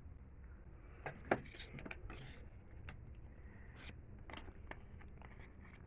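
Train wheels running on the rails, heard from inside a car: a low steady rumble with scattered irregular clicks and ticks, the sharpest about a second in.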